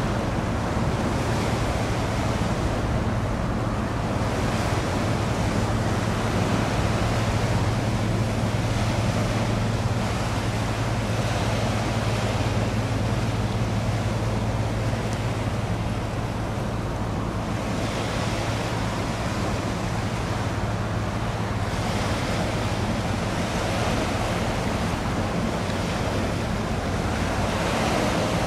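Water washing against the shore, swelling and fading every few seconds, over a steady low hum.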